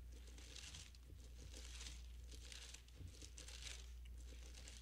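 Faint rustling of thin Bible pages being turned while looking up Luke chapter 7, several soft swishes one after another over a steady low hum.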